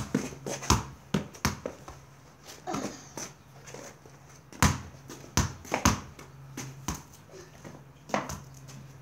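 A football being kicked and hitting a wall and the ground: several sharp thuds at uneven intervals, three of them close together about five seconds in.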